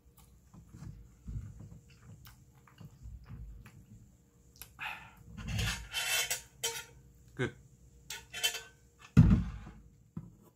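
Metal spoon scraping and clinking against the inside of a metal soup pot, busiest in the middle, followed by a low thud about nine seconds in.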